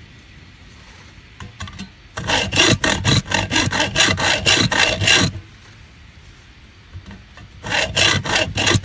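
Hand hacksaw cutting into a white-phosphorus incendiary rifle bullet held in a vise: rasping back-and-forth strokes at about three a second, in two runs, starting about two seconds in and again near the end, with a quiet gap between.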